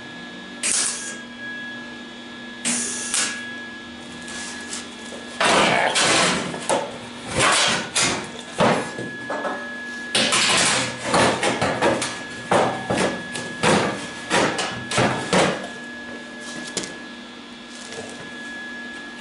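MIG welder crackling in short bursts as it tacks and stitch-welds cracks in the thin sheet-steel front valance of an MGB: two single tacks, then about ten seconds of rapid, closely spaced short welds. A steady faint hum runs underneath.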